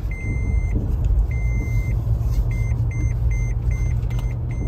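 Seatbelt warning chime of a 2011 Toyota FJ Cruiser sounding while the truck is driven, warning that the driver's seatbelt is not fastened. It gives two long beeps, then a quicker run of short beeps, about two or three a second. Engine and road rumble run underneath, heard inside the cabin.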